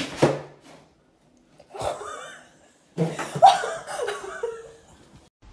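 A person laughing in three bursts, the last and longest about three seconds in.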